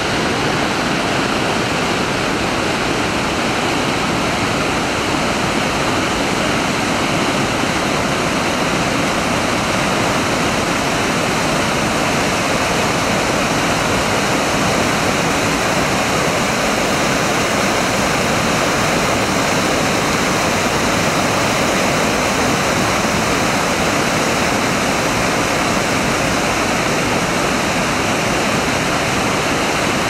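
Whitewater rushing through a rocky chute and over ledges in a steady, loud roar of falling water that does not change.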